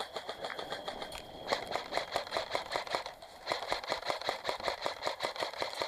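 Airsoft gun firing on full auto: rapid, evenly spaced shots at about eight to ten a second, with a short break about three seconds in before the firing resumes.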